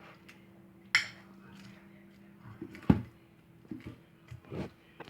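Utensil stirring slime of glue and soap in a container, knocking and scraping against its sides, with two sharp knocks about one and three seconds in.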